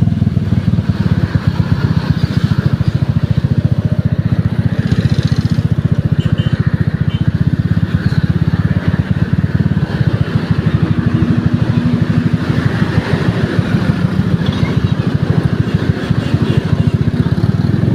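A vehicle engine running steadily and loudly, its firing heard as a fast, even pulsing.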